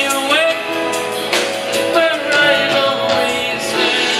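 Live soft-rock band playing through a PA, with a male singer's vocal over guitar and keyboards, heard from out in the audience.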